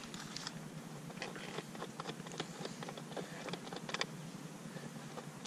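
Irregular light clicks and small rattles of hands handling the metal seat-lock bracket, cable and plastic parts under a motorcycle's seat, with a sharper click at the start and another about four seconds in.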